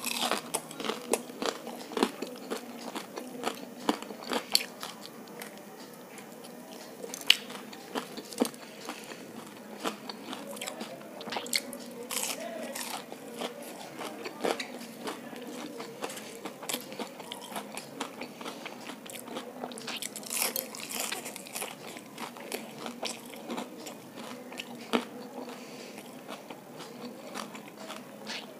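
A person chewing crispy fried gobi 65 (battered cauliflower) close to the microphone, with many irregular sharp crunches over the chewing.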